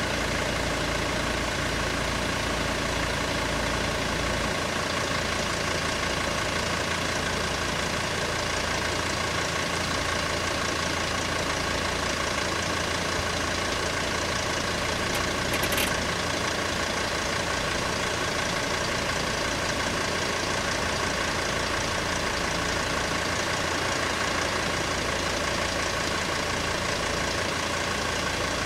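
Small hatchback car (Škoda Fabia) idling steadily while stopped close by, with a brief sharp click about halfway through.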